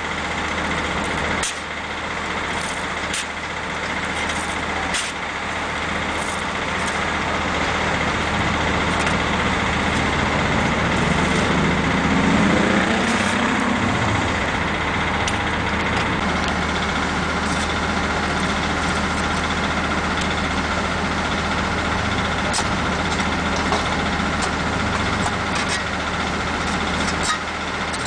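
Hitachi ZX330 excavator's diesel engine running steadily at idle, with a brief rising whine near the middle and sharp ticks here and there.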